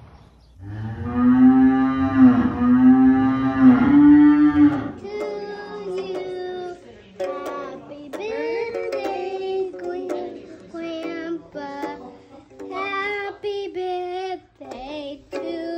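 A young child singing: one loud, long held note for the first few seconds, then a tune of short notes stepping up and down, with a small toy guitar strummed along.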